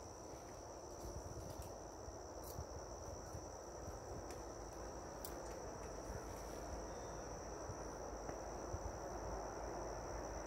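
Insects singing with one unbroken high-pitched trill, over a faint low rumble that slowly grows louder.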